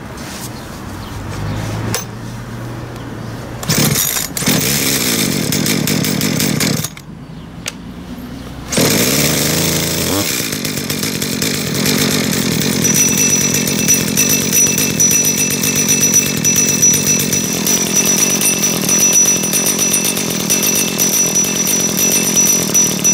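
Dolmar PS-32 two-stroke chainsaw idling, louder from about nine seconds in, with a high, steady metallic ringing joining over the engine about halfway through. The owner puts the ringing down to the clutch and clutch drum: a dirty clutch, or a worn needle bearing and washer letting the drum play at idle.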